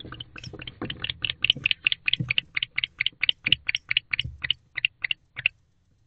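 Male barn owl chirping inside a nest box: a rapid, even series of short, high chirps, about four to five a second, which stop about five and a half seconds in. A faint low hum runs underneath.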